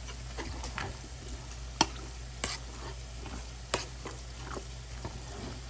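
Metal spoon stirring butter into cooked rice in a stainless steel pot: soft scraping and squishing, with three sharp clinks of the spoon against the pot.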